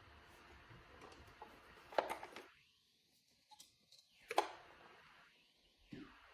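A few faint knocks and handling bumps, three in all, as a robot vacuum is picked up and held; the second is the loudest.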